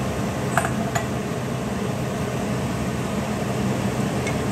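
Steady electric hum and fan whir of a running kitchen appliance, with two light clicks about half a second and a second in.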